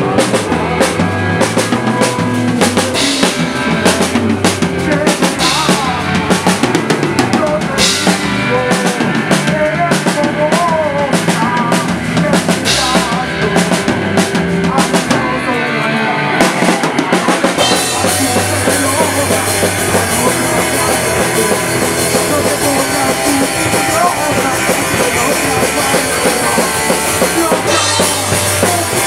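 Rock band playing live: distorted electric guitar, bass guitar and a drum kit. About two-thirds of the way in, the drumming changes from separate hits to a constant cymbal wash.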